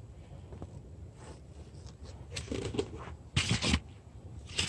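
Handling noise from a new side mirror and its packaging: light rustles and scrapes, a few short ones past halfway, then a sharp click near the end.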